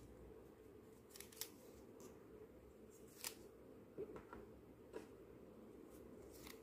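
Small plastic toy chairs clicking and tapping as they are pulled apart from a stack and set down on a table: about half a dozen short, light clicks spaced irregularly over a faint steady room hiss.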